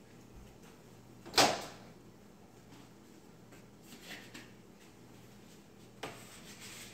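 Quiet room sound with one sharp knock about a second and a half in, and a short soft rustle near the end.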